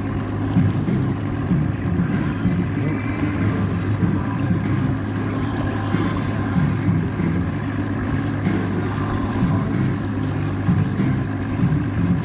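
Outboard motor running steadily at low speed, a constant low hum pushing the boat slowly along.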